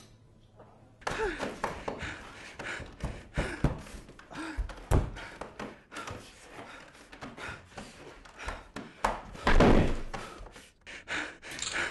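A rapid, irregular series of thumps, knocks and bangs, starting about a second in, with the heaviest thud near the end.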